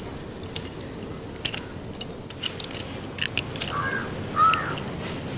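Small knife clicking and scraping against mussel shells as they are opened, a few sharp clicks. A crow caws twice near the end.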